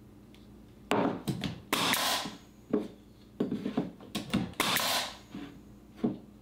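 Pneumatic nailer driving nails into a wood block: a quick series of sharp shots, each with a short hiss of exhaust air, beginning about a second in. Knocks of the block being handled fall between the shots.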